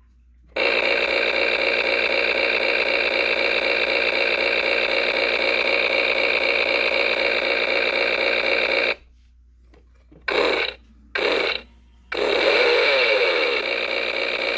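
Jonsered toy chainsaw playing its electronic chainsaw-engine sound effect through its small speaker, set off by its button: a steady buzzing run of about eight seconds, a pause, two short bursts, then another run with falling pitch sweeps near the end.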